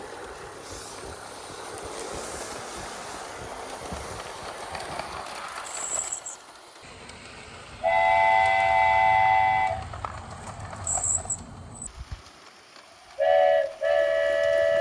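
A steady rolling noise, then a train horn sounds a chord-like blast: one long blast of about two seconds about eight seconds in, and two short blasts near the end.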